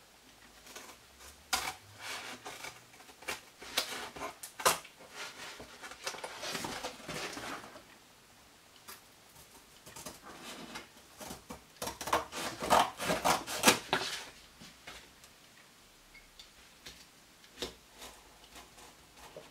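Scissors cutting through cardboard: crisp snips and crackling of the board in two runs of a few seconds each, with a short pause between them. A few lone clicks near the end as the cut pieces are handled.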